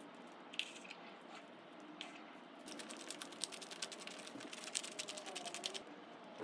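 Hand-twisted peppercorn grinder cracking peppercorns: a fast run of small dry clicks lasting about three seconds, starting a little under halfway through, after a couple of single clicks.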